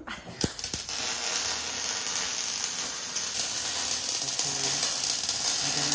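Electric arc welding: a steady crackling sizzle from the welding arc, starting a moment in after a couple of sharp clicks.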